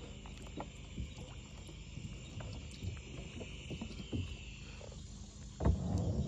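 Water sloshing with small splashes as a large largemouth bass is held in the shallows and released, with a louder low thump near the end. Behind it runs a steady high chirring of pond wildlife, which fades about four and a half seconds in.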